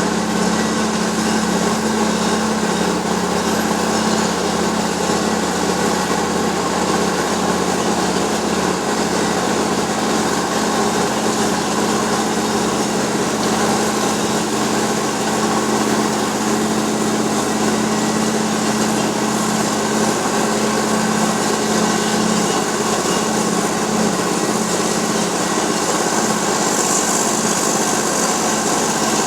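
Wirtgen cold milling machine running steadily, its diesel engine and rotating cutting drum grinding off old asphalt: a loud, even hum under continuous grinding noise.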